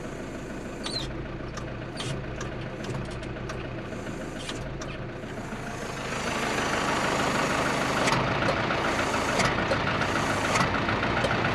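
1985 Mazda T3500 truck's engine idling in neutral, heard from close by, with a steady rapid pulse in its note; it gets clearly louder about halfway through. A few light clicks early on.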